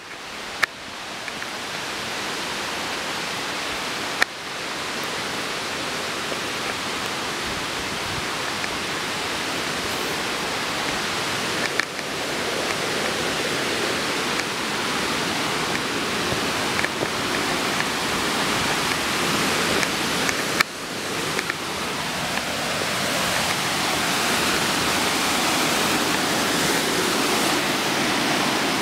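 Rushing whitewater of river rapids, a steady hiss that grows slowly louder. A few short clicks break in at points.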